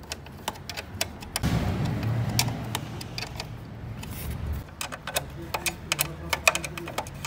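Hand tools working on engine parts: irregular metallic clicks and clinks. A louder low noise comes in about a second and a half in and lasts about three seconds.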